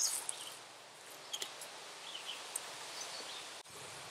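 Faint rustling and a few light ticks from hands handling nylon paracord while tying a knot, with faint bird chirps in the woods behind.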